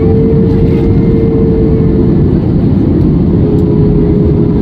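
Steady roar of an Airbus A320's engines and airflow heard inside the cabin during descent on approach. A steady humming engine tone rides over the roar, fading out about two seconds in and coming back slightly lower in pitch.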